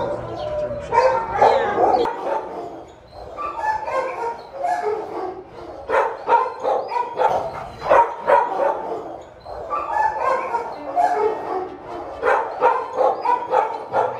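Several shelter dogs barking and yipping in their kennels, bark after bark in quick, overlapping succession.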